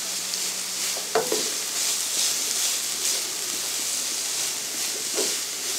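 Shredded chicken, cabbage, carrot and capsicum sizzling steadily in oil in a frying pan while being stirred with a silicone spatula, with the rustle and scrape of the stirring strokes over the hiss.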